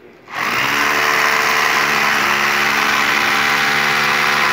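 Electric drill starting up about a third of a second in and running steadily, drilling at the base of a steel solar-panel stand into the concrete roof.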